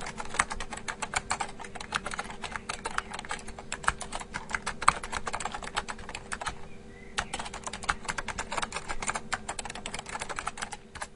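Computer keyboard typing from an office sound-effect sample: fast, dense key clicks with a short lull about two-thirds of the way through, over a steady ambient hum.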